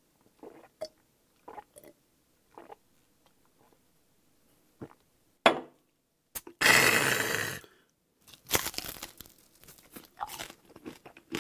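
Crunching and chewing on crispy deep-fried pork-belly chicharron, in scattered bites. There is a sharp crack about halfway through, followed soon after by a louder burst of crunching.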